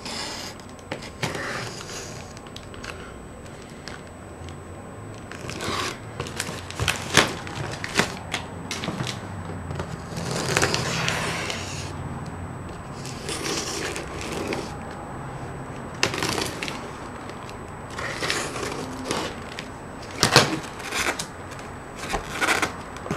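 Cardboard monitor box and its packing being opened and handled by hand: irregular rustling and scraping with scattered clicks and knocks, a few of them sharper and louder.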